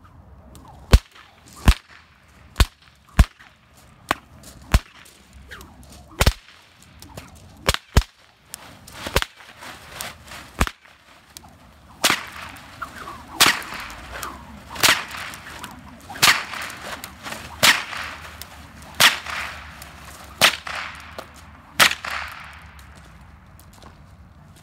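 A series of loud, sharp cracks. About a dozen come at irregular spacing, then from about halfway on one comes roughly every second and a half, each trailing a short swish.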